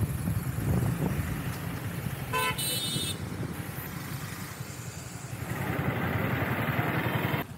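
Motorcycle engine running on the road, with a vehicle horn honking once briefly about two and a half seconds in; the engine grows louder again near the end.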